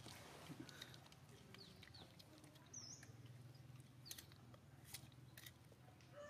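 Near silence: a faint steady low hum with a few soft, sharp clicks and faint high chirps.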